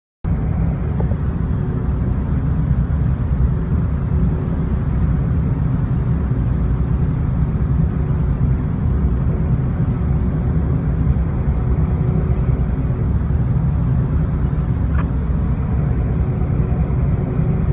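A steady, loud low rumble with a faint constant hum above it.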